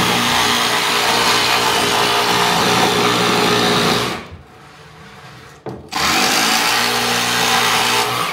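Cordless power saw cutting through plywood. The motor runs under load, stops about four seconds in, then starts again after a short pause and cuts until near the end.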